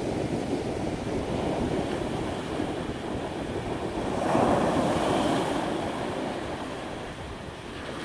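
Sea surf breaking and washing up onto a beach, a steady rush with one louder wave crash swelling up about four seconds in. Wind buffets the microphone.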